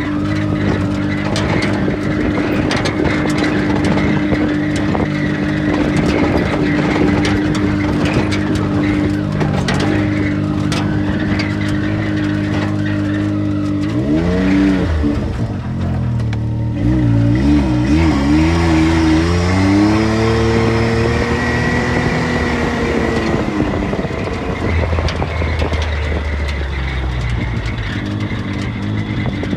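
Off-road vehicle engine running at a steady speed, then changing speed from about halfway through: it rises and falls several times, climbs in pitch, and settles back near the end. Frequent knocks and rattles run alongside it.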